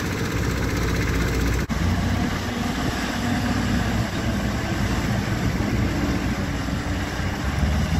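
JCB backhoe loader's diesel engine running steadily while the machine levels the backfilled soil over a ditch.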